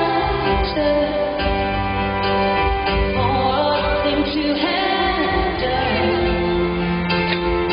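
A woman singing a slow pop song live over instrumental accompaniment, with long held notes.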